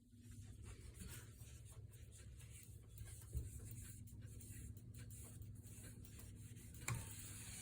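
Faint rubbing of a damp cloth wiping along ceiling fan blades, with two light knocks, one a little under halfway through and one near the end.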